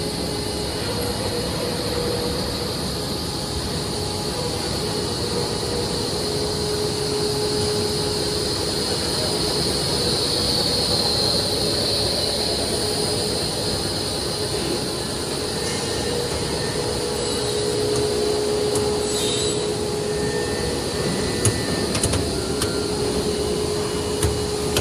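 Steady running noise of a PVC profile extrusion line's machinery (conical twin-screw extruder and mixer motors), a continuous drone with a held hum and a higher whine. A few light clicks near the end.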